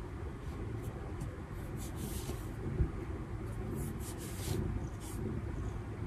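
Soft, irregular taps of typing on a laptop keyboard, mixed with the rustle of sleeves and the cat's cloth suit, over a low steady room hum.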